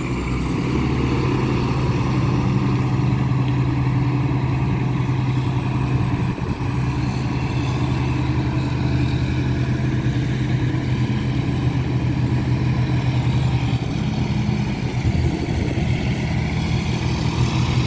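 A vehicle engine running steadily, with a faint high whine above it.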